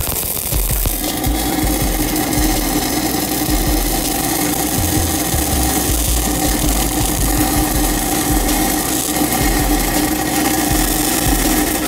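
Stick welding arc from a 1/8 in 6010 electrode at 85 amps, burning steadily while running the root pass on a pipe joint. It makes a continuous harsh crackling hiss.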